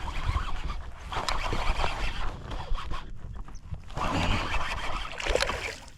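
Scraping and rustling handling noises with scattered clicks on a kayak as a just-caught speckled trout is brought in and handled, in two spells with a lull about three seconds in.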